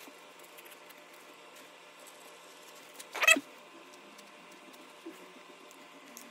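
Razor blade cutting a leather toe cap, with light ticks and one short squeak, falling in pitch, about three seconds in, the loudest sound.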